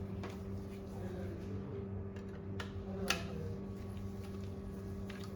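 Light clicks and taps from SATA and power cable connectors and drive parts being handled, the sharpest about three seconds in, over a steady low electrical hum.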